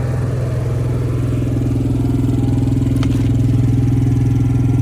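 An engine running at a steady idle, a low even hum. About a second in a second, higher hum joins and the sound grows a little louder. There is a faint click about three seconds in.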